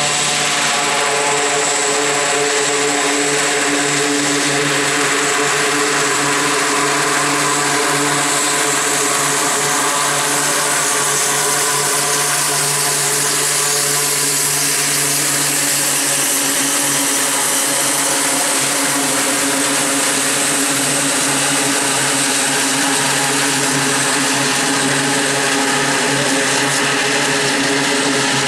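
Grumman E-2C Hawkeye's two turboprop engines running steadily as it taxis: a loud, even propeller drone with a high turbine whine over it.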